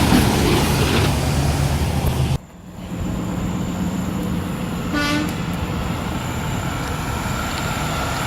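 Heavy trucks on a road: a truck engine running loud and low, cutting off abruptly a little over two seconds in, then steady traffic noise with one short horn toot about five seconds in.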